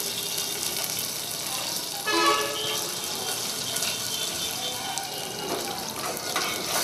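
Chopped vegetables frying in a pot on a gas stove: a steady sizzling hiss, with a few sharp clicks of a metal spoon stirring the pot near the end.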